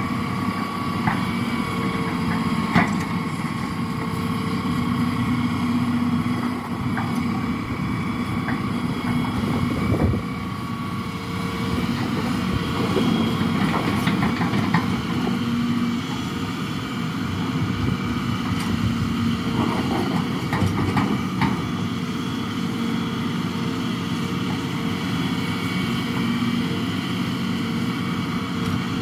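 Excavator's diesel engine running steadily under working load, with occasional short knocks and clanks.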